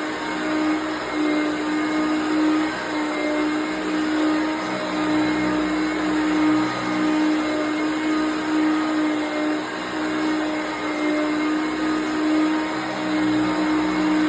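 1988 Hoover Concept One upright vacuum cleaner running steadily: an even motor hum over a continuous rush of air.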